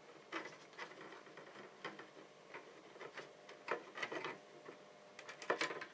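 Light, irregular clicks and taps of small tools and wires being handled at a soldering bench, with a quick run of clicks near the end.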